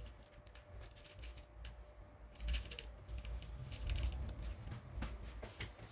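A cat crunching dry kibble: irregular small clicky crunches, coming thicker about halfway through and again a little later, over a low rumble.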